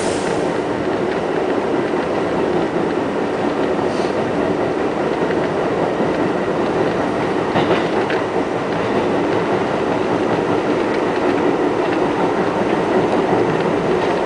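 NYC Subway R68A train heard from inside the car while running at speed: a steady rumble of wheels on rail, with an occasional sharp click.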